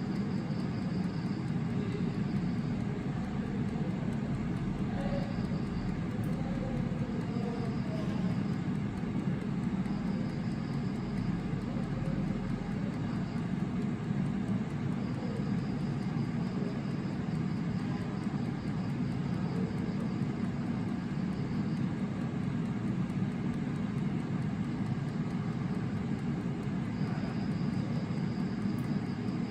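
Air fryer running, its fan giving a steady low whirring hum while the squid inside cooks.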